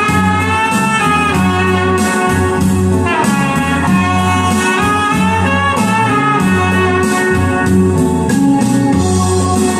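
Instrumental music with long held melody lines over a steady bass beat, played back as a demo through loudspeakers driven by an STP DB14000 power amplifier.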